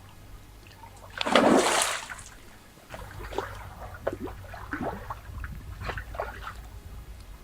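Water splashing: one loud splash about a second in, then smaller splashes and drips.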